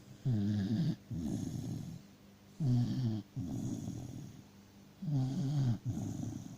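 Dachshund snoring in deep sleep: three breaths, each a short pitched snore followed by a longer, rougher breath.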